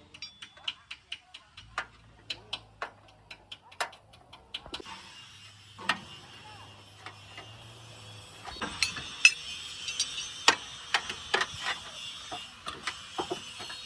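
Irregular light taps and clicks of workshop tools being worked. A steady hiss joins about five seconds in and grows louder near nine seconds.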